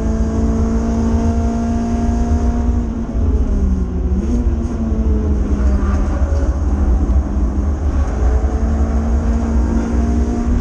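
Renault Clio 182's 2.0-litre four-cylinder engine running on track, heard from inside the cabin over heavy road and wind rumble. The engine note holds steady, dips briefly about three seconds in, then picks back up.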